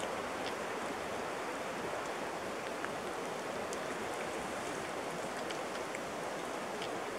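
Steady hiss of light rain falling through the forest, with scattered faint ticks of drops.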